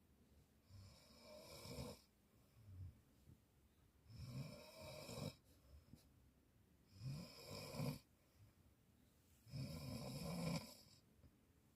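A teenage girl snoring in deep sleep: four snores about three seconds apart, each a rasping breath with a low rumble, with quiet in between.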